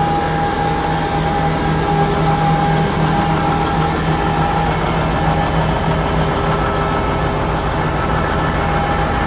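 Jet fuel truck's engine running steadily at idle with its power take-off still engaged, a constant low hum with a steady higher whine over it.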